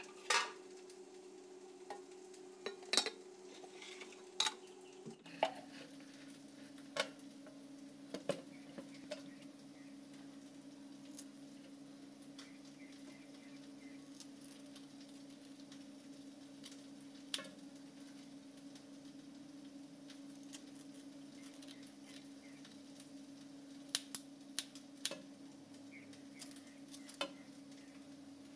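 Scattered knocks and clinks of a silver pomfret and wet hands against a stainless steel basin of water. A steady low hum runs underneath and drops in pitch about five seconds in.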